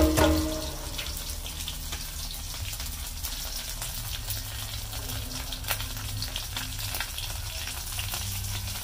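Crabs frying in hot oil in a metal pan: a steady sizzle with scattered crackles and pops.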